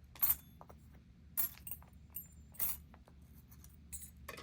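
Light metallic clinks and taps from small lockpicking tools and a padlock being handled. Four sharper clinks come a little over a second apart, with fainter ticks between them.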